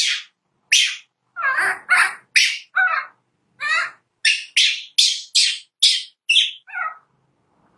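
A monkey giving a rapid series of short, high-pitched squeals, about two a second, a few of them lower and falling in pitch. The calls stop about a second before the end.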